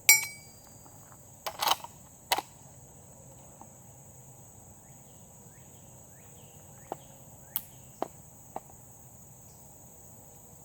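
A steel AR500 gong ringing briefly after a rifle hit, followed about a second and a half later by a few sharp metallic clicks and later several faint clicks.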